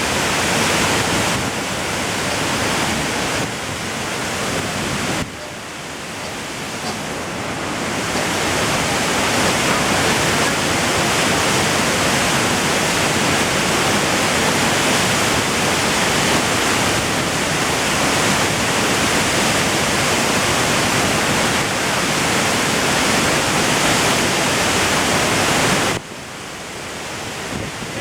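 Waterfall: a steady, loud rush of falling water. The level drops suddenly about five seconds in and again near the end, then builds back up.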